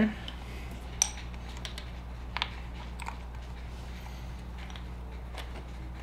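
A few faint, light metallic clicks and taps as the oil filter cover and its bolts are handled and set in place on a dirt bike engine, over a steady low hum.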